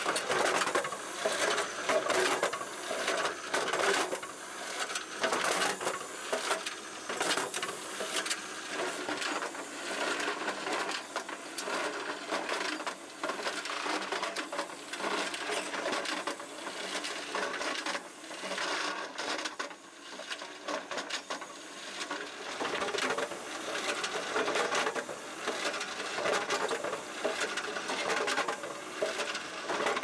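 Skid-steer-mounted Stanley DH-3500 drop hammer pounding a concrete slab: a steady run of knocks and clatter as the weight strikes and the concrete breaks up, with a brief lull about two-thirds of the way in.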